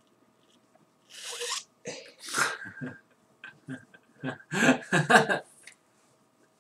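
A man's wordless vocal sounds: a breathy burst about a second in, then several short runs of choppy voiced bursts, the loudest near the middle.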